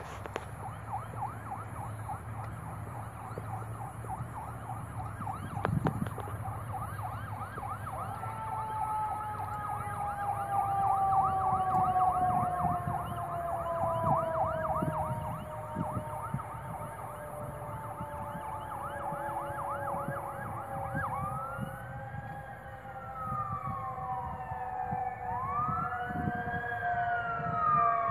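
Emergency vehicle siren: a fast repeated yelp, then long tones that slowly drop in pitch, and from about two-thirds of the way in, slow rising and falling wails.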